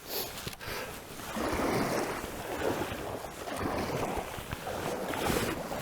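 Water splashing and rushing around a kayak paddled down a fast-flowing river, swelling and fading with each paddle stroke.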